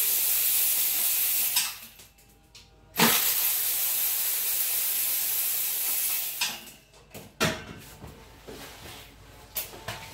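A loud steady hiss in two long spells, each cut off sharply, followed by a single knock and a few light clicks.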